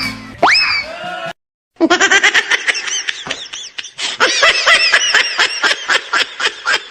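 A short rising glide, a brief gap, then a long run of rapid, high-pitched laughter.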